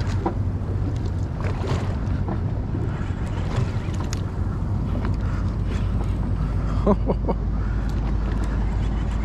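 Wind on the microphone and water moving against a fishing boat's hull, over a steady low hum, with a few brief knocks or splashes.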